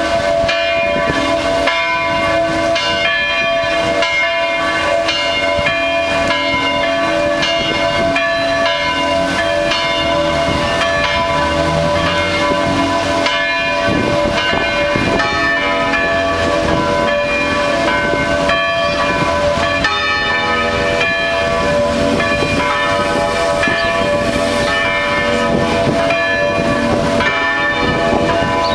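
Cathedral carillon playing a melody, a new bell note struck about every half second, each ringing on under the next.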